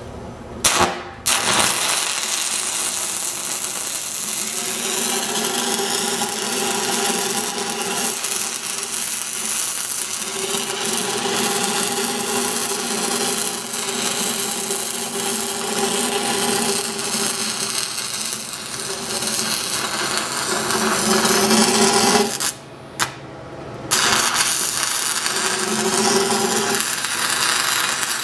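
Stick welding arc crackling and frying steadily as a downhill root bead is run on a steel pipe joint. The arc is struck with a sharp crack about a second in. Near the end it goes out for about a second and is struck again.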